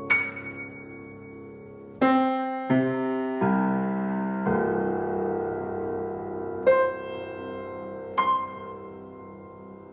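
Steinway Model L grand piano being played slowly. A high treble note rings out and fades, then a run of four chords is struck in the middle of the keyboard and left to sustain, and two more high single notes ring near the end.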